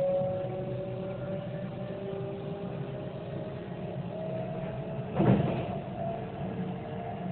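Running noise inside a Kintetsu Ise-Shima Liner limited express train: a steady rumble with faint hum tones drifting slowly in pitch. A single sharp knock comes about five seconds in.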